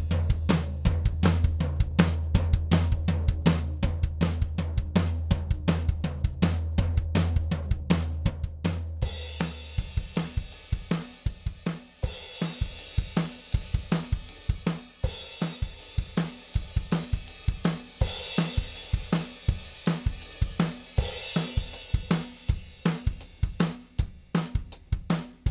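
Recorded drum kit playing a steady beat, with kick, snare, hi-hat and cymbals, played back as a demonstration of the Audient Black compressor. A sustained low bass note holds under the drums and stops about ten seconds in, and the cymbals get brighter from then on.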